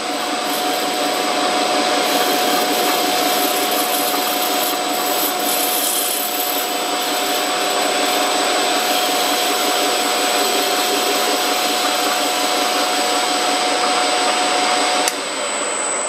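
Metal lathe running and taking a light cut, about five thousandths, on a brass workpiece: a steady machine whir with a thin whine over it. Near the end the whine stops with a click and the machine noise drops a little while the lathe keeps running.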